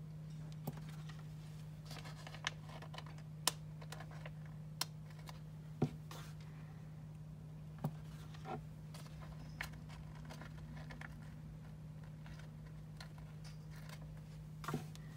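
Stickers being peeled from a sheet and pressed onto paper planner pages by hand: scattered light clicks, taps and short paper rustles over a steady low hum.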